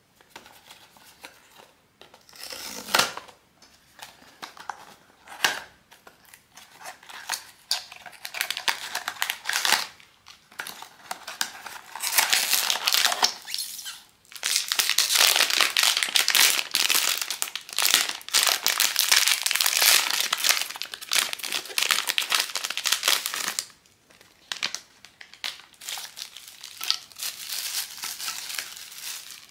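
Blind-box toy packaging opened by hand: crinkly wrapping being crumpled and torn. It comes in short bursts with a couple of sharp snaps a few seconds in, then about ten seconds of dense, continuous crinkling from just before the middle, then lighter crinkles.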